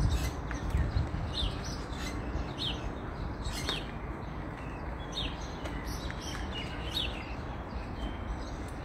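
Small birds chirping in short, high, falling chirps, one every half second to a second, over a steady low rumble that is strongest in the first second.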